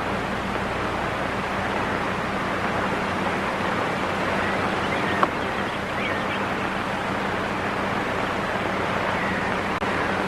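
Steady hiss and low hum of an old 1970s film soundtrack, with a single sharp click about five seconds in.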